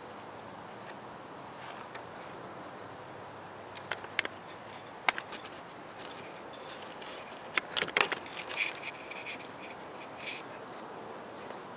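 Steady faint background hiss, broken by several sharp clicks about four and five seconds in, and a spell of light clicking and rustling around eight to ten seconds.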